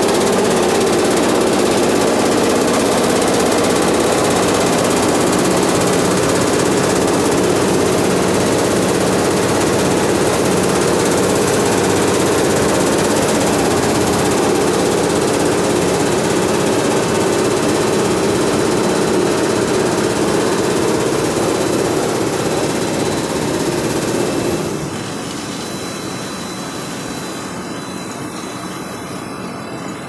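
Bean sprout bubble washing machine running, its spring-mounted vibrating screen making a loud, steady mechanical rattle and din. It gets somewhat quieter near the end.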